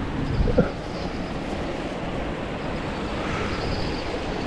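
Steady rushing outdoor noise of moving air or water, with a short low thump about half a second in.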